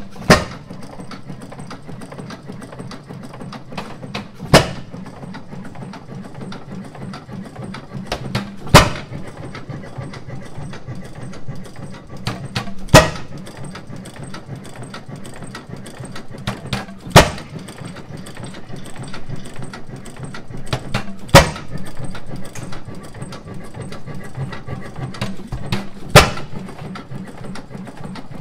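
1910 International Harvester Famous 8 hp single-cylinder hit-and-miss engine running: a sharp bang of a firing stroke about every four seconds, with a steady mechanical clatter as the flywheels coast between firings.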